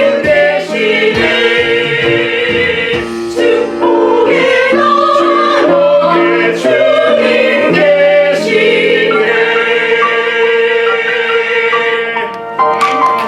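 Church choir singing a gospel anthem in parts, ending on a long held chord for the last few seconds.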